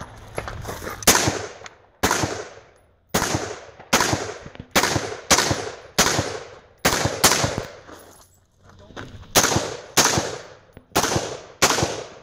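AR-style semi-automatic rifle firing a string of about eighteen shots at an uneven one to two a second, each shot followed by a short echoing tail, with a pause of over a second about two-thirds of the way through.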